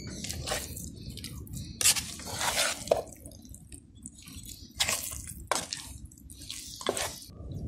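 A metal spoon stirring thick, wet rice and urad dal batter in a metal pot, making irregular squelching strokes as water is worked in to loosen it.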